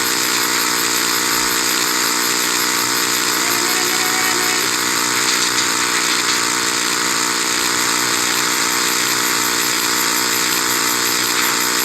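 Light aircraft engine and propeller running steadily at constant power, a loud even drone with no change in pitch.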